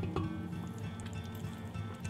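Background music, over faint sizzling of chicken drumsticks frying in a pot.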